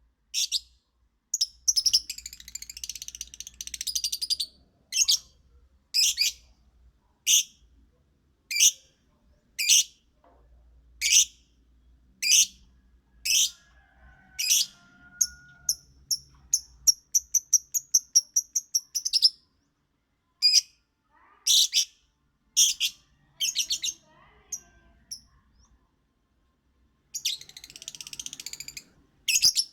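Lovebird singing: sharp high-pitched chirps about once a second, with bursts of rapid chattering twitter near the start and near the end, and a quick run of short, evenly spaced notes, about eight a second, midway through.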